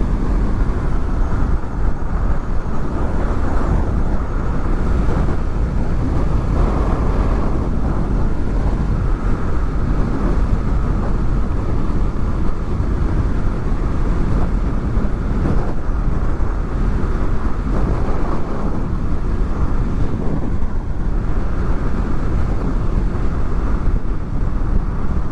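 Steady wind rush and engine noise of a Honda VFR800 V4 motorcycle at riding speed, picked up by helmet microphones covered with furry dead-cat windshields.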